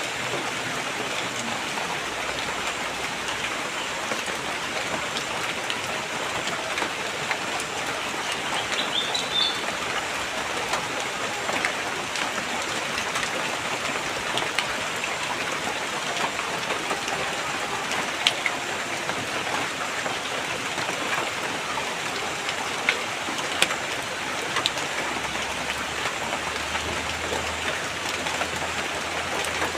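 Steady rain, an even hiss with scattered individual drops ticking, and a brief high chirp about nine seconds in.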